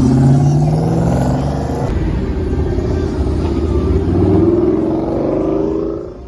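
Car engine accelerating hard: its pitch climbs, breaks at a gear change about two seconds in, then climbs again through the next gear before the sound falls away near the end.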